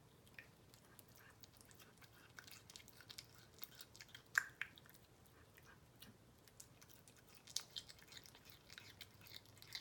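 A cat chewing a chunk of raw beef: faint, irregular wet clicks and crunches of its teeth working at a piece too large to chew easily. The loudest snap comes about four and a half seconds in.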